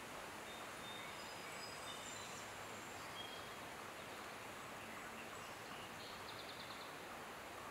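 Steady outdoor background hiss with a few faint, short, high bird chirps in the first few seconds and a quick faint trill about six seconds in.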